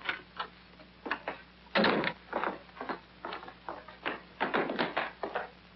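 A door bangs shut about two seconds in, followed by a run of footsteps on a hard floor.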